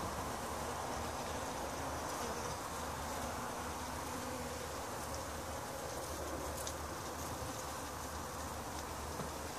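Several honeybees buzzing steadily as they fly around and forage on an open artichoke flower, their hums overlapping.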